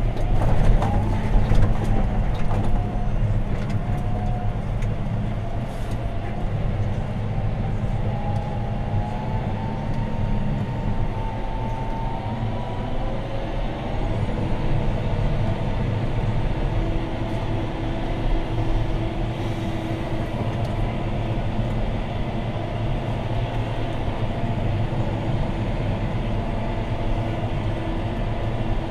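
John Deere 6215R tractor's six-cylinder diesel engine running steadily under ploughing load, heard from inside the cab. A whine wanders in pitch, rising slowly over the first half and dropping about thirteen seconds in.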